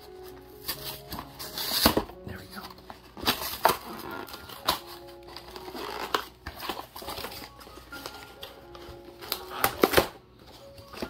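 A cardboard box being torn and pried open by hand: ripping and crinkling, with the loudest tears about two seconds in and again near the end. Soft background music plays underneath.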